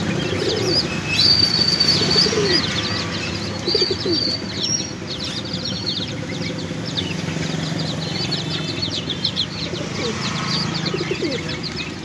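Jacobin pigeons cooing in a wire cage, a few low rising-and-falling coos, over a constant chatter of many short high chirps from small birds.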